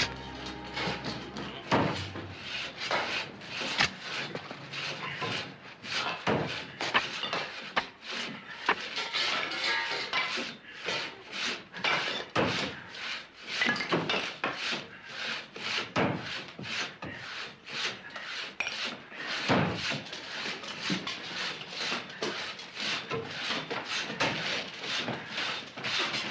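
Irregular knocking and scraping of wood and rubble, a long run of clatters and rasps with no steady rhythm, like debris being dug at and shifted by hand.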